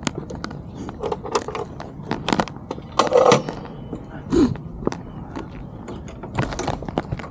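Irregular clicks and knocks of handling, with a louder clatter about three seconds in and a short low pitched sound just after four seconds.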